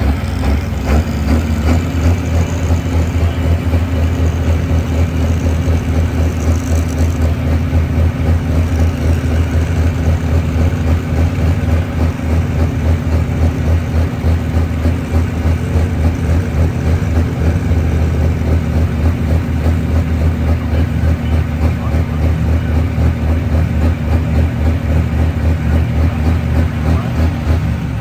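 International Harvester super stock diesel pulling tractor engine idling steadily and loud, with a fast deep pulse.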